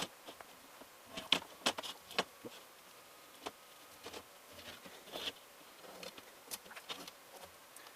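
Irregular small clicks and scrapes as a rubber screen spline is pried out of a window screen frame's channel.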